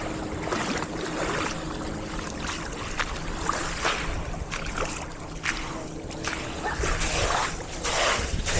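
Seaside ambience: small waves washing ashore in repeated surges, with wind on the microphone and a faint steady hum in the first part.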